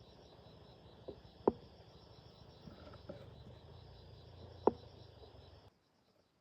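Insects chirring steadily, with two sharp knocks, one about a second and a half in and one near five seconds, and a few fainter taps between them. The sound drops out abruptly near the end.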